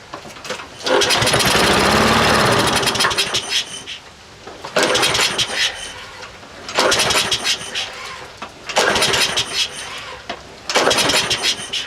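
Troy-Bilt walk-behind lawnmower being pull-started by its recoil cord: the engine fires and runs raggedly for about two seconds, its pitch rising, then dies, followed by four more pulls about two seconds apart that do not keep it running. The hard starting comes from a dirty carburetor whose needle valve hangs up the float, in the owner's diagnosis.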